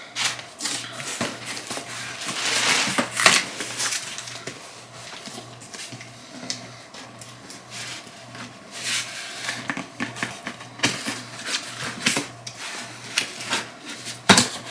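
Brown packing paper and crinkled paper filler rustling and crackling as a subscription box is unpacked by hand, in irregular bursts with a sharper rattle near the end.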